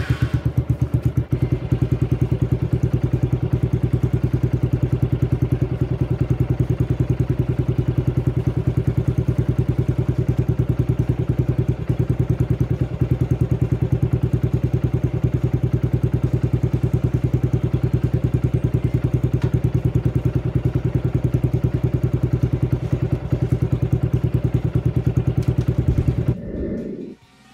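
Yamaha Sniper 135's single-cylinder engine idling steadily, heard close to the exhaust, then shut off near the end.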